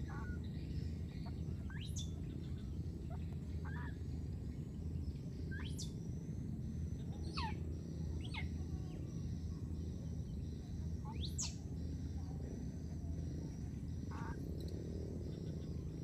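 Short, high-pitched animal calls that sweep down in pitch, one about every two seconds, over a steady low background rumble.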